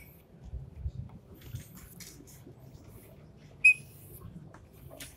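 Drawing on a board: faint taps and scratches of the writing tip, with one short, high squeak about three and a half seconds in.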